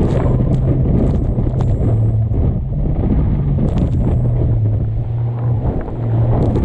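Waverunner (personal watercraft) engine running under way, a steady drone that steps up and down slightly in pitch, under heavy wind buffeting on the microphone, with scattered sharp slaps and splashes of water against the hull in choppy seas.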